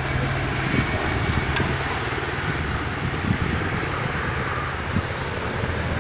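A road-race peloton of racing bicycles passing close by at speed, making a steady rushing whirr of tyres and freewheels. A low, steady engine hum runs underneath.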